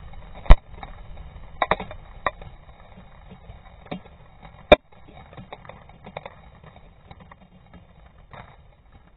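Aftermath of a Tannerite explosion: a fading low rumble, then scattered sharp clicks and taps of falling debris, the loudest about half a second in and another near five seconds, thinning out toward the end.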